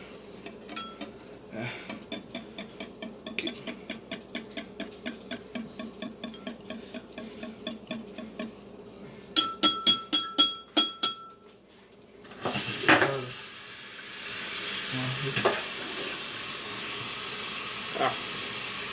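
Eggs being whisked in a bowl, a steady clicking about four times a second; then several louder taps that ring, like a whisk knocked against the bowl. About twelve seconds in, a steady sizzle of food frying in a hot pan starts and runs on.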